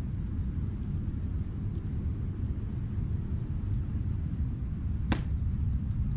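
Wood fire crackling in a fireplace: sparse small crackles and one sharper pop about five seconds in, over a steady deep rumble of snowstorm wind.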